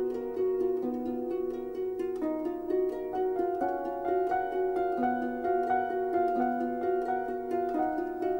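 Background music of quick, repeated plucked-string notes, harp-like, in a steady flowing pattern.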